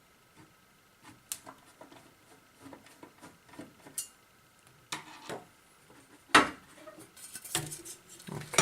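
Plastic and metal parts of an LED disco dome light being handled and taken apart: scattered clicks and clinks, a louder knock about six and a half seconds in, then a quick run of clattering near the end.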